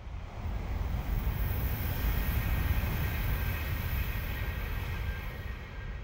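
Kyushu Shinkansen bullet train passing at speed close by: a heavy rush of wheel, rail and wind noise with a high hiss on top swells up in the first second, holds loud through the middle, and starts to fade near the end as the train runs away.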